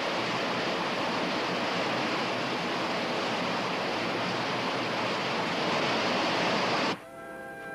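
Fast-flowing stream rushing through white-water rapids, a steady, loud rush of water. It cuts off suddenly near the end and brass music begins.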